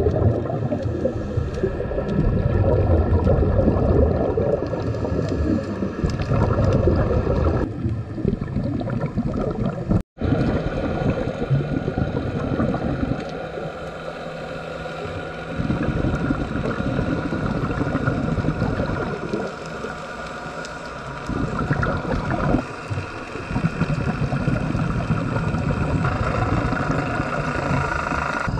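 Underwater sound of a scuba dive: exhaled bubbles from a diver's regulator gurgling in surges every few seconds, over a steady underwater hum. The sound drops out sharply once, about ten seconds in.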